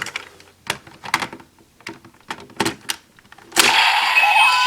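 Hard plastic clicks and snaps from a DX Kamen Rider Geats toy belt and its Zombie Raise Buckle and Buffa Core ID as the parts are handled and slotted in. About three and a half seconds in, the toy's electronic sound effects start playing loudly from its speaker.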